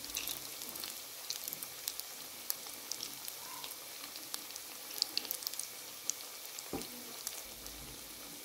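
Breaded chicken-and-potato bread rolls deep-frying in oil in a wok on a low flame: a steady sizzle with scattered sharp crackles and pops.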